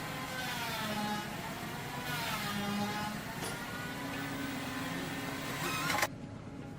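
A machine's motor running with a whine whose pitch sags and rises again, cutting off abruptly about six seconds in.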